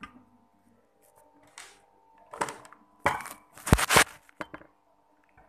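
Handling noise from a phone's microphone as the phone is picked up and repositioned: a few brushing rustles and knocks, the loudest about three to four seconds in, over a faint steady hum.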